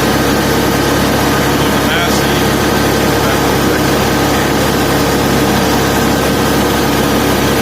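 Tractor engine running at a steady speed, an even drone with no change in pitch or level.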